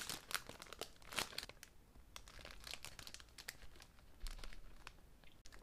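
Faint crinkling of a thin clear plastic bread bag as a soft baguette is handled in it: a quick run of rustles and crackles for the first second and a half, then scattered crackles.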